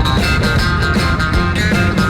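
Rock music with guitar playing at a steady level.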